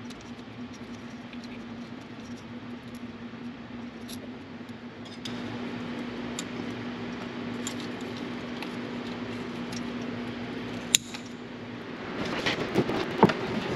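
Cables being zip-tied: faint scattered ticks and rustling over a steady hum, with one sharp snap about eleven seconds in. Near the end there is louder clattering and knocking.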